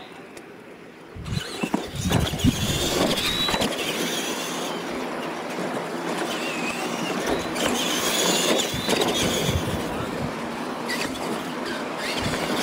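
Radio-controlled monster trucks racing over a dirt track, their motors and gears whining, with a rising and falling high whine over a steady rush of tyre and drivetrain noise. It starts suddenly about a second in.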